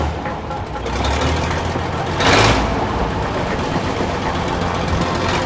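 Diesel engine of a large JCB 4CX backhoe loader running, with a brief louder surge about two seconds in.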